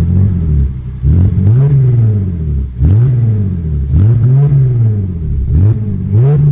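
BMW E46 320Ci's straight-six engine revved gently through its rear-muffler-deleted exhaust, the revs rising and falling about five times, roughly every second and a half.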